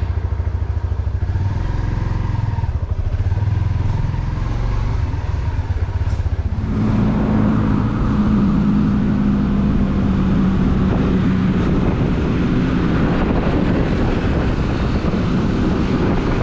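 Motorcycle engine running steadily. About seven seconds in, the sound changes to a fuller, steady hum with added road and wind noise, as the bike gets under way.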